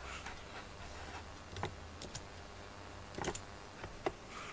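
Cat grooming itself, licking its fur: a few short, irregular wet clicks of the tongue.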